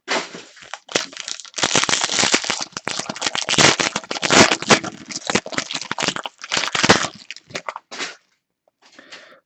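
A foil trading-card pack wrapper being torn open and crinkled by hand: dense crackling that runs for about eight seconds and then stops, with one brief faint rustle just before the end.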